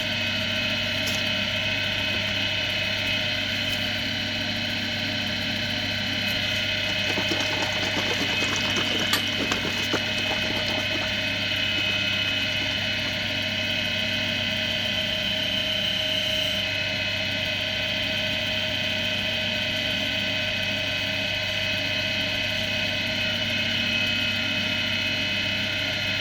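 Axminster AC240WL wood lathe running steadily with a constant motor hum and whine. About a third of the way in come a few seconds of irregular scratchy noise, typical of a turning tool cutting the spinning oak blank. The motor's tones stop right at the end.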